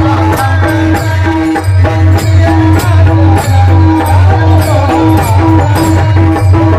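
Devotional bhajan music with hand cymbals (tal) and a drum keeping a steady beat, the cymbals striking about twice a second.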